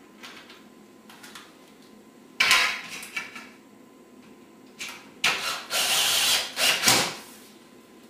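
Cordless screw gun driving screws through a skylight shade's pre-drilled side rail into the wall of the skylight box, in short bursts: one about two and a half seconds in and a longer run from about five to seven seconds.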